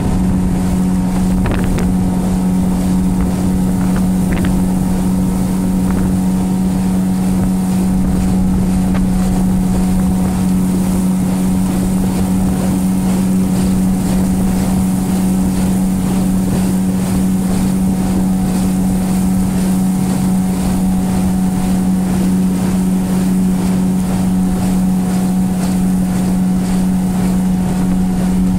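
Boat motor running at a steady speed, heard from aboard the moving boat: a constant low drone that holds one pitch throughout.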